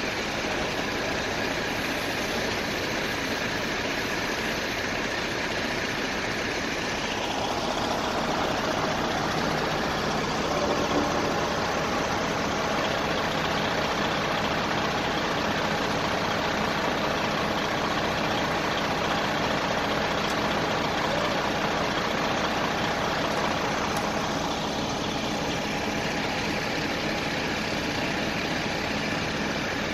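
Fire apparatus engines running steadily at idle, a constant engine noise with faint steady tones.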